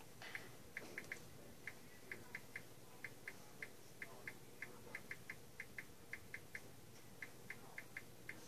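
Faint key clicks from typing on a smartphone's touchscreen keyboard, one short click per letter, coming unevenly at about three a second.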